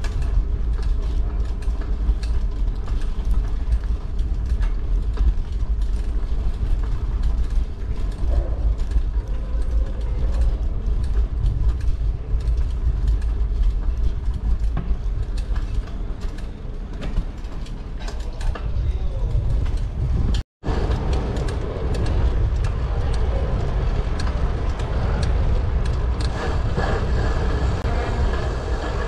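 Wind rumbling steadily on a GoPro's microphone during a bicycle ride, with the bike rattling and clicking over the road and street noise around it. The sound cuts out for a split second about twenty seconds in.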